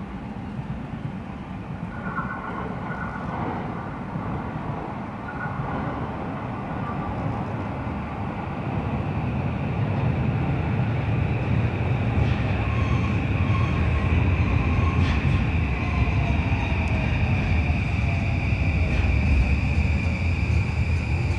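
A JR East E235 series 1000 subseries electric train pulls into the platform. The rumble of its wheels grows louder about halfway through as it comes close, with a steady high whine and a tone that falls in pitch as the train slows, plus a few clicks.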